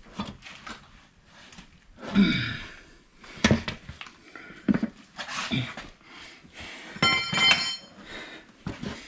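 Steel tyre levers clicking and scraping against a wheel rim and rim protectors as the bead of a stiff Dunlop race tyre is levered on by hand, with a ringing metal clink about seven seconds in. Short breaths and grunts of effort come in between.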